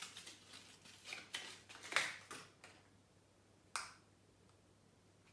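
Soft rustles and taps of a plastic powder compact being handled and taken out of its wrapping, then one sharp click about three and a half seconds in as the compact is opened.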